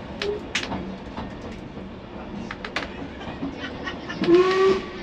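Narrow-gauge steam train heard from inside a wooden carriage: a steady running rumble with a few sharp clicks from the wheels over rail joints. A little after four seconds in, the locomotive's steam whistle gives one short blast, the loudest sound, a warning for a road crossing.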